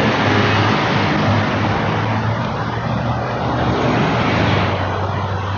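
Road traffic on a busy multi-lane street: cars passing in a loud, steady rush of noise.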